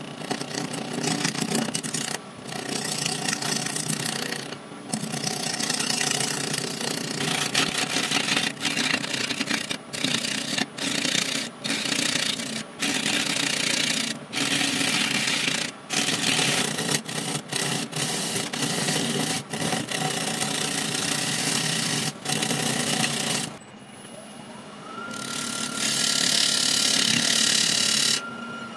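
Turning gouge cutting into a large spinning monkey puzzle log on a wood lathe, roughing the blank down: a loud scraping cut in runs of a second or two, broken by short breaks where the tool comes off the wood. Near the end the cutting stops, a machine whine rises in pitch and holds steady, and a brighter cut picks up again for a couple of seconds.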